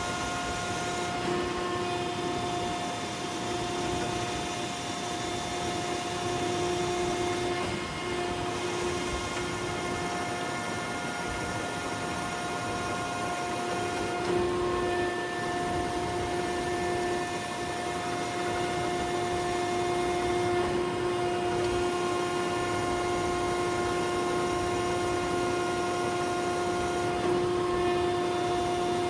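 Landis 3RH universal cylindrical grinder running an automatic grinding cycle, its wheel spindle and hydraulics going: a steady machine hum with several constant tones over a noisy hiss, shifting slightly about every six to seven seconds.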